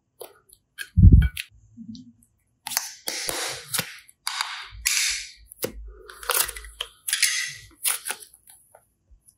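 Hands working soft modeling clay and a clear plastic mould: a dull thump about a second in, then a run of short scraping, rustling handling noises with sharp clicks as the clay is pulled from the plastic.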